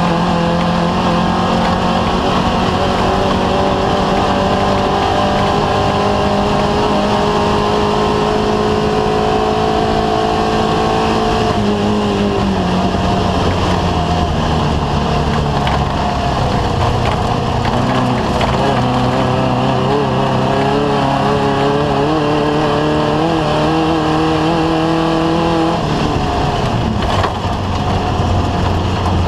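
Off-road race vehicle's engine running hard at high, steady revs over rushing wind and road noise. The pitch drops about twelve seconds in, holds steady again, then changes once more near the end.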